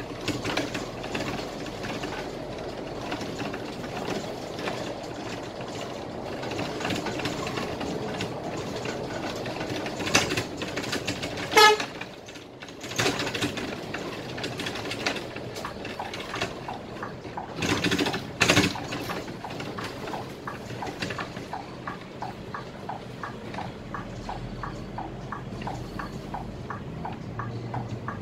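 Cabin noise of a Scania K320IA city bus on the move, with the engine and road noise running steadily. A horn blasts once, briefly, about a third of the way in. A little past halfway there are two short loud knocks, and in the last part a faint, steady, rapid ticking.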